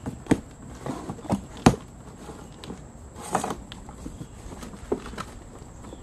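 Cardboard box being cut open and its flaps pulled back: a series of sharp taps and knocks on the cardboard, the loudest about two seconds in, with a short rustling scrape about three and a half seconds in.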